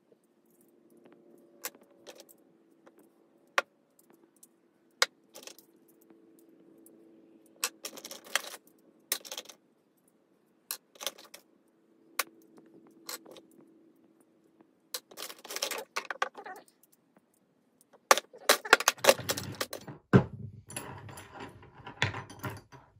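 Small brass parts and rods clinking as they are picked from a plastic tub and set down on a workbench: scattered sharp clicks, then a denser run of rattling and clatter in the last few seconds, over a faint steady hum.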